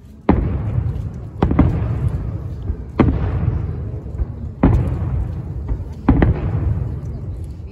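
Aerial firework shells bursting: about six deep booms, one every second or two, each trailing off in a long rolling rumble.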